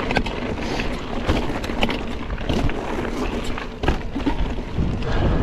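Mountain bike tyres rolling and crunching over loose gravel and rocks, with many sharp clicks and knocks as the bike rattles over the bumps and a steady low rumble of wind on the microphone.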